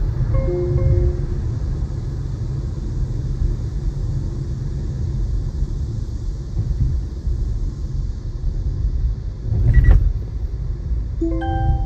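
Steady low road rumble of a car driving, heard from inside the cabin. Short electronic chimes sound near the start and again near the end, and a sudden thump comes about ten seconds in.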